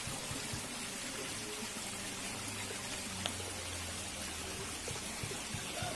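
Shallow stream water running steadily over rocks and debris, with one short click a little past halfway.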